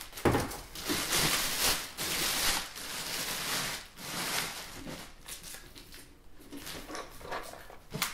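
Clear plastic bag crinkling and rustling in irregular bursts as a computer case is pulled out of it and handled.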